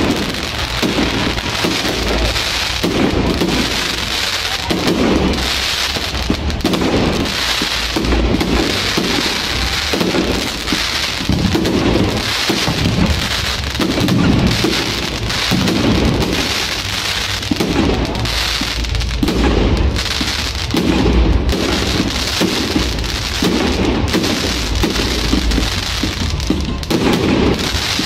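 Aerial fireworks bursting overhead: a dense, unbroken crackle and popping, with a low rumble that swells about once a second.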